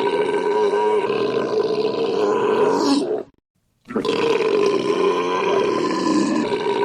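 A long, loud belch held on a steady pitch. It cuts off about three seconds in, and after half a second of silence a second, identical belch starts.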